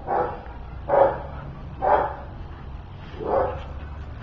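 A pet dog barking: four short barks about a second apart.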